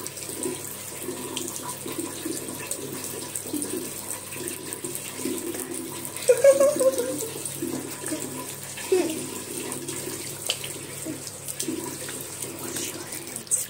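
Water running from a tap onto hands being rubbed with soap and into a basin of pebbles, a steady splashing hiss. About six seconds in there is a brief pitched sound, louder than the water, with a fainter one about three seconds later.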